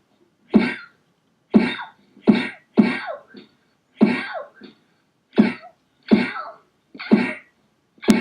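A rapid series of about ten short, sharp punch hits, each with a grunting, cough-like edge, coming roughly once or twice a second in a staged fist fight.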